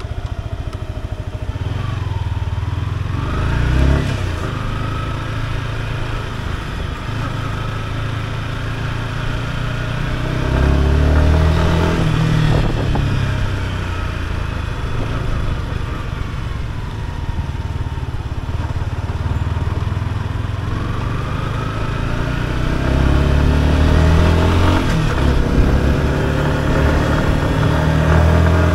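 Yamaha R125's 125 cc single-cylinder four-stroke engine heard from the rider's seat while riding. It pulls up in pitch as it accelerates three times, each time then easing off to steadier running.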